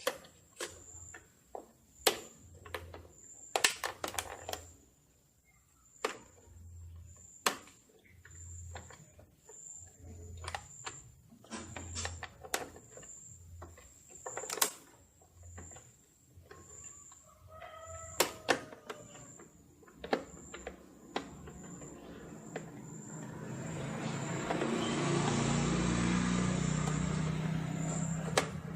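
Irregular sharp clicks and knocks of hand tools and plastic parts as the Vespa's headlight cover is worked loose. A rooster crows faintly once, and an insect chirps steadily in pulses. In the last third a passing vehicle's engine swells up, peaks and eases.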